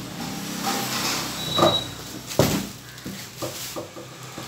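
Cardboard cartons being handled: rustling and a few knocks and thumps as the boxed machine is lifted by its plastic carry handle and set down, with the loudest thump about two and a half seconds in.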